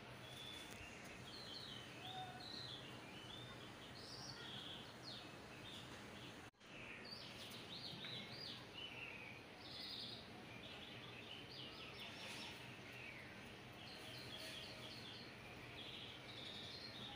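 Small birds chirping and twittering faintly in quick varied phrases over a low steady hiss. The sound cuts out for an instant about six and a half seconds in.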